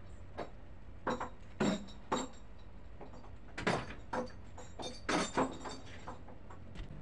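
Irregular metal clanks and knocks, some briefly ringing, from chain and tools being worked at a fishing boat's chain-wound winch drum, over a low steady hum.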